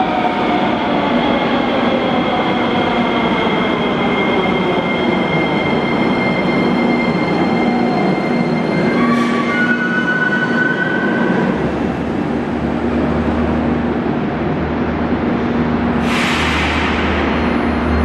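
Metrovagonmash Rusich metro train pulling into the station. Its motor whine falls in pitch as it slows, with a brief squeal near the halt. Once it stands there is a steady low hum, then a short sharp hiss about two seconds before the end.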